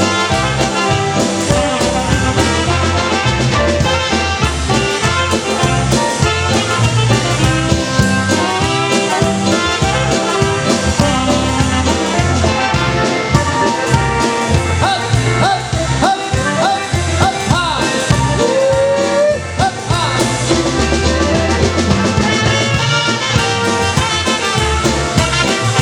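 Live polka band playing an instrumental break, a brass lead over a steady bass beat, with a few sliding notes about two-thirds of the way through.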